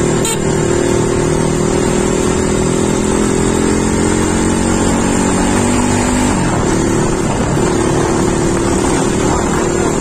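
CrossFire RM 250 dirt bike's single-cylinder four-stroke engine running under way, with its exhaust dB killer still fitted. The engine note falls slowly, dips about six seconds in, then holds steady. Wind buffets the phone microphone throughout.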